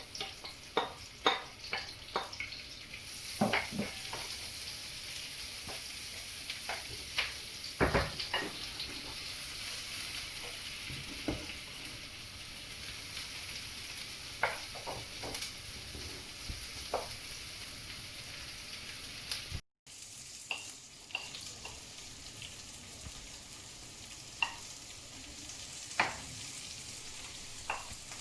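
Food sizzling in a hot wok while being stir-fried, with a utensil clicking and scraping against the pan, most often in the first half. The sound drops out for an instant about twenty seconds in.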